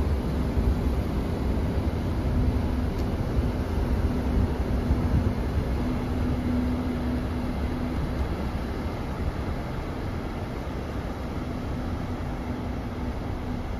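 Large cruise ferry passing close by through broken sea ice: a steady low rumble with a hum from its engines and machinery, easing slightly as it moves away.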